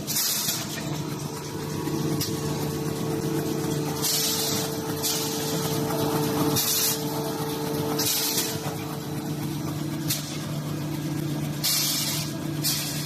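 Facial tissue packing machine running with a steady mechanical hum, broken by repeated short hisses of compressed air every second or two.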